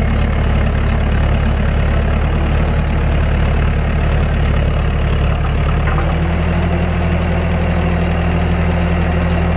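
Bobcat T770 compact track loader's diesel engine running steadily, its note changing about six seconds in.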